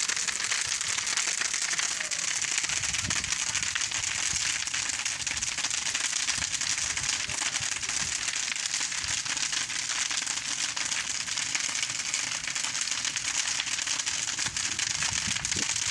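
Large bonfire of wooden boards burning, with a dense, steady crackle of many small pops over the rush of the flames.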